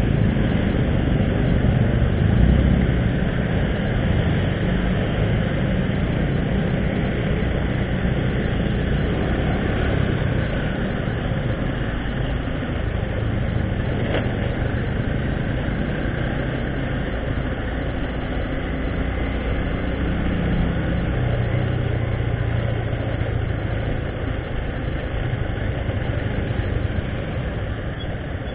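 Motorcycle engine running steadily at low speed in slow town traffic, with the noise of other motorbikes and cars around it.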